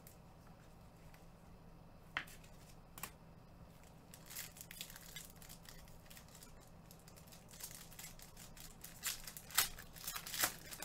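Trading cards and plastic packaging being handled: scattered crinkles, rustles and sharp ticks, busiest in the second half, over a faint steady low hum.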